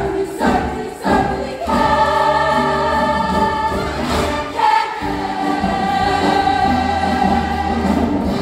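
Women's show choir singing in full harmony: a few short, punchy chords, then long held chords, with a brief break a little before halfway.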